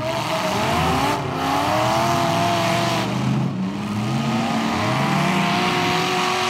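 Engines of several demolition-derby pickup trucks revving hard at once, their pitch repeatedly rising and falling.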